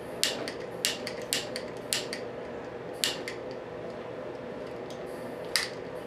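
Sharp, irregular clicks and light creaks as hands press and fit small plastic parts and wiring on a micro RC helicopter's frame, over a faint steady hum.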